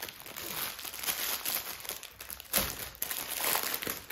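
Plastic packaging of a diamond painting tool kit crinkling as it is handled, with a louder crunch about two and a half seconds in.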